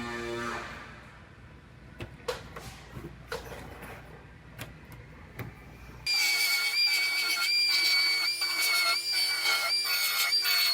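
Faint scattered taps and knocks of body-shop work, then, about six seconds in, a power tool starts up abruptly and runs with a steady high-pitched whine that wavers slightly in rhythm, as while cutting sheet metal.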